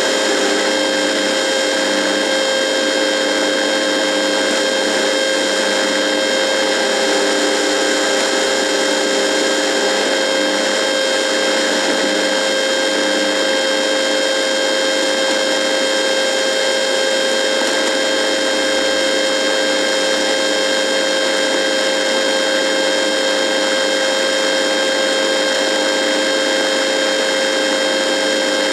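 Radio buzzing: a steady electrical buzz over hiss, with several unchanging tones, one standing out in the middle range, and no deep bass. A fainter lower tone comes and goes during the first ten seconds.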